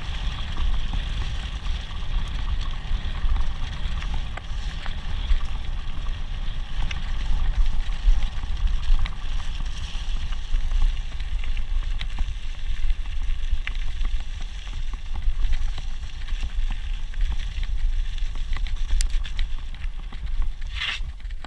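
Wind buffeting the action camera's microphone as a mountain bike rolls fast down a loose gravel track, with a steady low rumble and the tyres rattling and clicking over stones. A short high squeal comes near the end.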